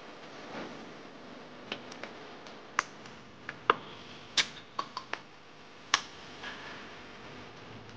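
Metal tuna can being handled on a wooden chopping board and its ring-pull lid worked with the fingers: a string of sharp clicks and taps, the loudest about four and six seconds in.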